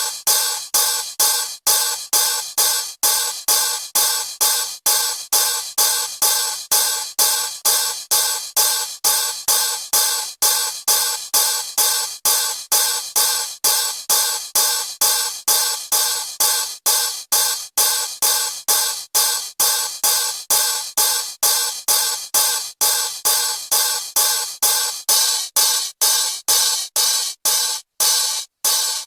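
Toy cymbal-clapping monkey clashing its small metal cymbals in a steady rhythm, about three clashes a second, each with a brief metallic ring. Near the end the clashes become uneven, with short gaps between them.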